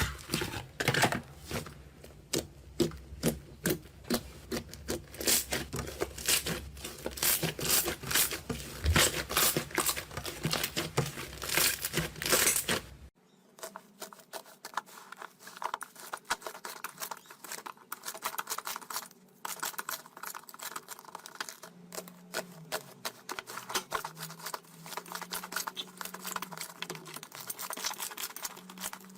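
Slime being squeezed and poked by hand, a fast run of crackling, popping clicks. Nearly halfway through it cuts to a quieter, thinner stretch of the same kind of clicking.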